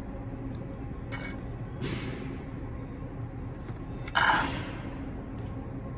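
Handling noises from a plastic oil bottle being worked over the open engine: a sharp clink about a second in, then two short rustling rushes, the louder one a little after four seconds, over a steady low hum.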